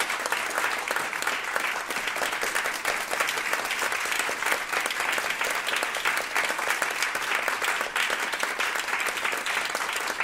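Audience applauding: a roomful of people clapping without a break.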